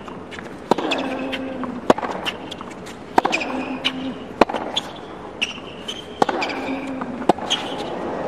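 Hard-court tennis rally: six sharp racket strikes on the ball, about one every second and a quarter, with players' shoes squeaking on the court between shots and a short grunt after some of the strokes.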